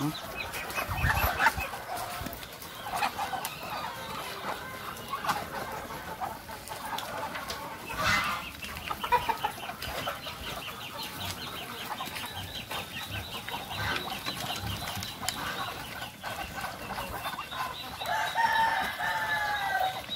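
Chickens clucking around a farmyard, with a rooster crowing.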